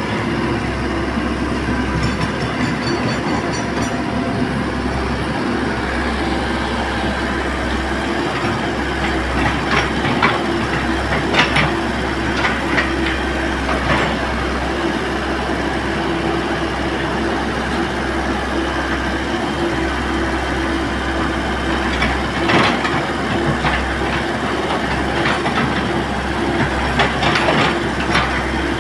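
Komatsu excavator's diesel engine running steadily, with a few sharp metallic clanks from the machine working, most of them in the second half.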